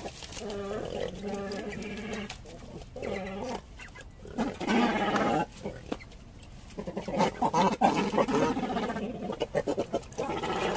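Cormorants calling while being fed fish: several guttural calls, each lasting a second or two, with the longest near the end.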